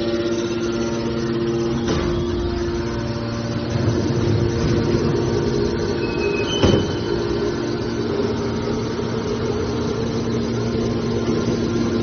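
Hydraulic power unit of a car baler, an electric motor driving a hydraulic pump, running with a steady hum. A knock sounds about two seconds in and a louder one near the middle, just after two short high tones.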